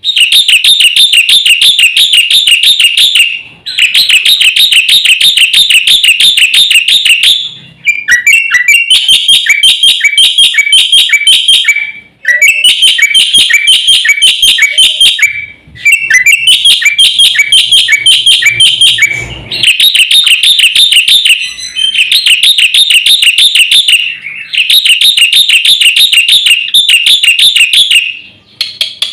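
Black-winged myna (jalak putih) singing: bouts of a few seconds of rapid, evenly repeated high chirps, several a second, broken by short pauses, with some bouts adding a lower run of falling notes.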